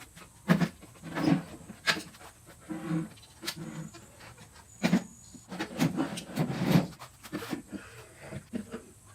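A string of irregular knocks and clunks, like wooden cabinet panels and parts being handled and fitted together, with several sharp strikes and short clatters.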